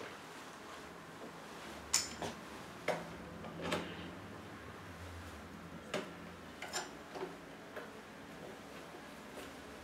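Clicks and knocks from a camcorder being handled and fitted onto the head of a microphone stand arm: a sharp click about two seconds in, a few more over the next two seconds, then a cluster of lighter clicks around six to eight seconds.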